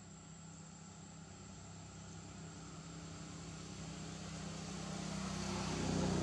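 A passing motor vehicle: a low, steady engine drone that grows gradually louder to a peak at the end.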